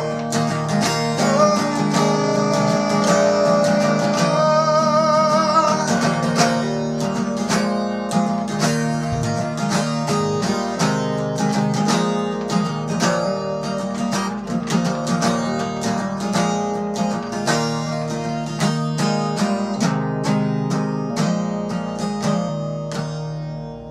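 Steel-string acoustic guitar strummed and picked, chords changing steadily, with the last chord ringing out near the end.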